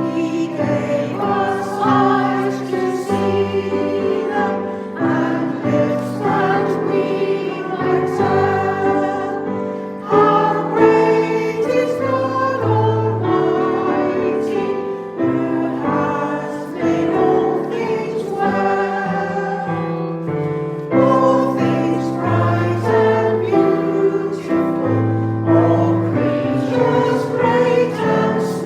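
A hymn sung by a group of voices, with keyboard accompaniment playing held chords.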